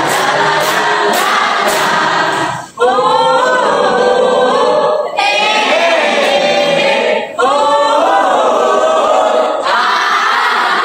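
A group of teenage students singing a song together in unison, with hand claps keeping time about twice a second at first. The singing breaks off abruptly about three seconds in and then carries on, with a few more brief cut-offs.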